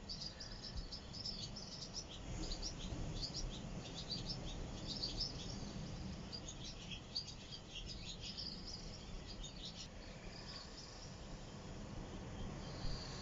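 Many small birds chirping in quick, short calls, thinning out over the last few seconds, over a low steady rumble.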